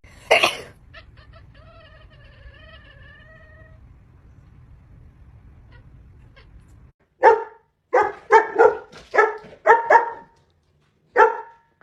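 A pet animal calling: a loud cry just after the start, a wavering drawn-out call, then a quick run of about seven short sharp calls in the second half.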